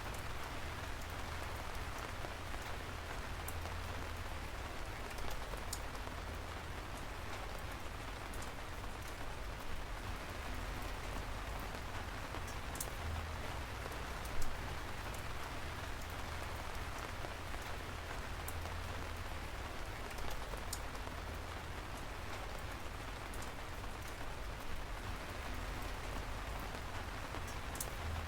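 Steady rain falling: an even hiss scattered with small sharp drop ticks, and now and then a louder single drip.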